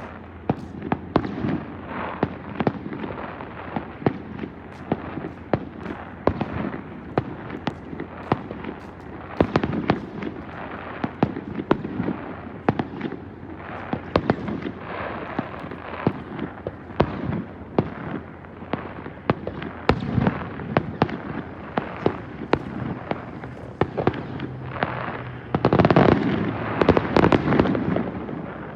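Fireworks display: aerial shells bursting in quick succession with sharp bangs and crackling. The bursts thicken into a louder, denser barrage near the end.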